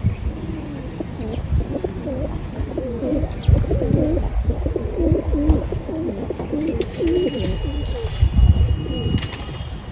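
A flock of domestic pigeons cooing, many overlapping coos throughout, over a low rumble.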